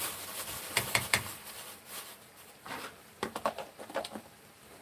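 Plastic bag crinkling as it is pulled off a plastic food container, loudest in the first second or so, then a quick run of light clicks and taps about three seconds in.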